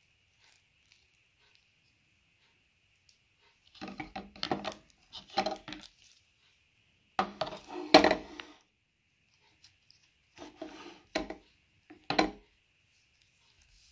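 Clicks and knocks of a hand tying tool's plastic tape housing and tape roll being handled on a wooden table, coming in five short bursts, the loudest about eight seconds in.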